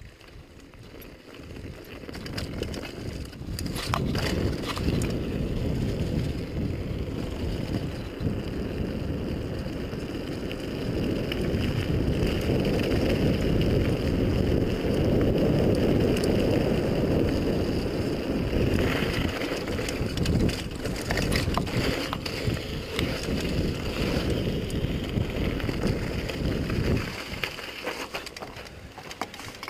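Mountain bike in motion on a dirt and gravel trail: wind rushing over the camera microphone and tyres rolling, with a few knocks as the bike goes over bumps. The rush builds over the first few seconds and drops off suddenly near the end as the bike slows.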